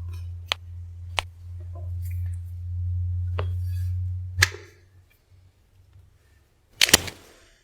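A steady low electric hum with a few sharp clicks over it, stopping with a click about four and a half seconds in. A loud sharp crack follows near the end.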